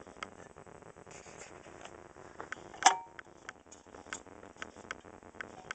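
Faint clicks and taps of a Numechron clock movement and its metal lamp bracket being handled and set down into the die-cast metal cabinet, with one sharper metallic clink that rings briefly about three seconds in.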